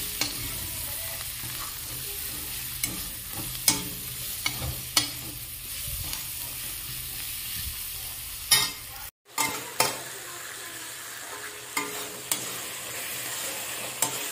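Onion-tomato masala sizzling as it fries in a metal kadai, stirred with a spatula that scrapes and knocks against the pan now and then. The sound cuts out for a moment about nine seconds in.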